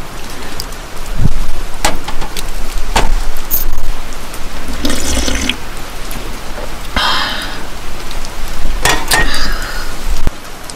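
Steady rain falling, while soju is poured from a glass bottle into a small stainless steel cup. A few sharp knocks and louder splashy spells stand out over the rain.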